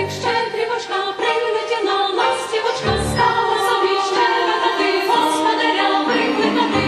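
Chamber choir singing, with the low bass dropping out for most of the passage and sounding again briefly about three seconds in.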